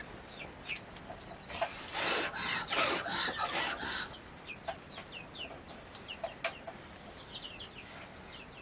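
Chickens clucking, with short high falling peeps repeating throughout, and a rustling noise from about one and a half to four seconds in.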